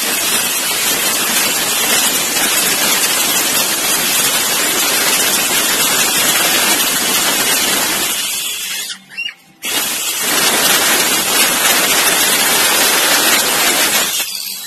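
Electric circular saw ripping through a plywood sheet, a loud steady cutting noise. About eight seconds in the saw is released and winds down, then it starts again a second and a half later and cuts on until just before the end.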